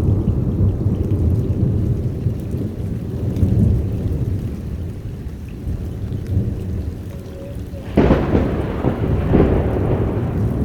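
Heavy rain with thunder rumbling low, then a sudden sharp thunderclap about eight seconds in that crackles on.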